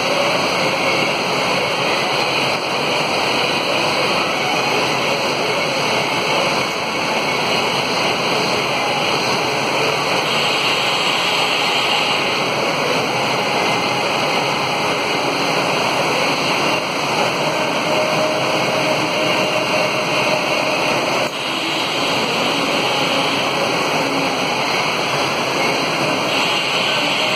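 Steady rushing noise of machinery running, with one brief dip about twenty-one seconds in.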